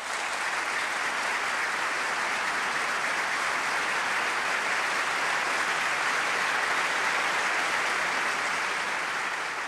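A large hall of delegates applauding in a dense, steady ovation that greets the end of a speech, easing off slightly near the end.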